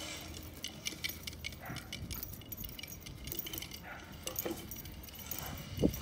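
Light metallic jingling and clinking, irregular and continuous, from a dog playing with a toy on a zipline. A short, louder low thud comes near the end.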